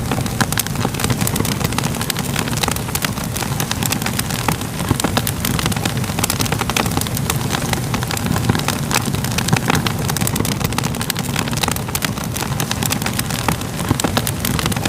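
Crackling fire ambience: a steady low rumble of burning with many small, irregular pops and crackles.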